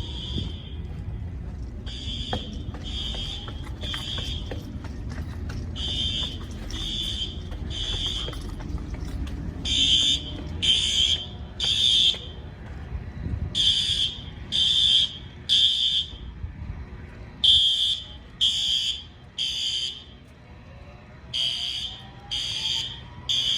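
Fire alarm sounding the three-beep evacuation pattern: high beeps about a second apart in groups of three, repeating every four seconds or so, with a faint slow-whoop tone rising in the background near the end.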